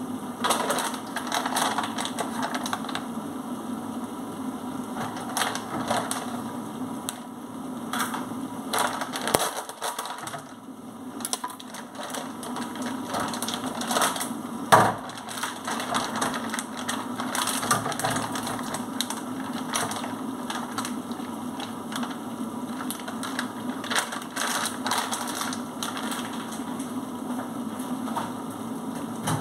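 Kitchen handling sounds: irregular knocks, taps and clatter as food and packages are moved about on a stainless steel counter and sink, with one sharper knock about halfway through. A steady low hum runs underneath.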